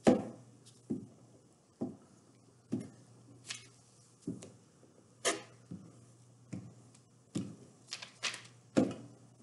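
Glue stick rubbed over paper and paper handled on a tabletop: about a dozen short, irregularly spaced taps and scrapes over a faint steady hum.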